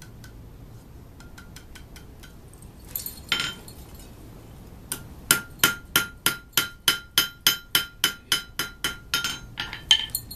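Blacksmith's hand hammer striking hot iron on an anvil while forging a hook: light taps at first, two heavier blows about three seconds in, then a steady run of about four blows a second, each with a ringing note from the anvil.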